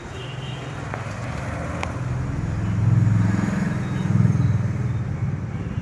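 Low engine rumble of a road vehicle going by, swelling to its loudest around three to four seconds in and then easing off.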